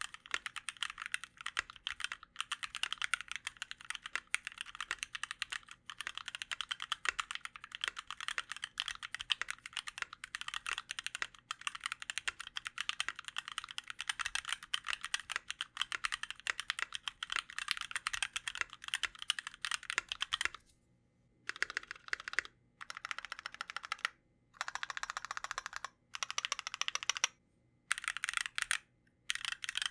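Steady, fast typing on a TKC CandyBar Premium R2 mechanical keyboard with lubed and filmed H1 switches on TX 70g springs, an aluminium plate and DSA keycaps. About two-thirds of the way through, the typing breaks into short bursts with brief pauses between them.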